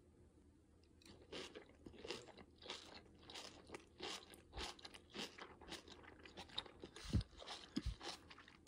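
A person chewing a mouthful of fresh hand-made tofu topped with kimchi, heard up close. Starting about a second in there is a steady run of crunchy chewing sounds, about three a second, with a couple of low thumps near the end.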